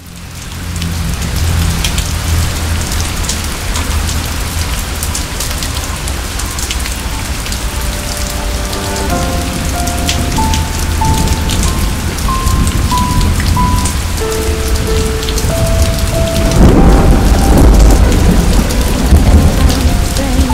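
Heavy rain falling steadily, with thunder rumbling. About nine seconds in, a slow melody of single held notes from the song's opening comes in over the rain, and a loud deep rumble of thunder swells near the end.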